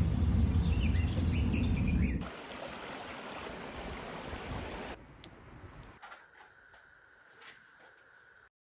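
A low rumble for about two seconds, then an abrupt cut to the steady rushing of a stream. The rushing drops in steps to faint outdoor ambience and ends in silence near the end.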